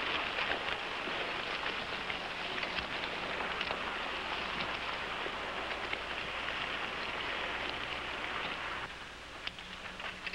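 Steady patter of rain, dense small crackles that cut off suddenly near the end.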